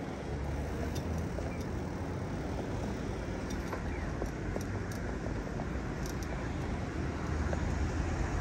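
Steady road traffic noise with a low rumble, heard from a moving bicycle, with a few faint ticks.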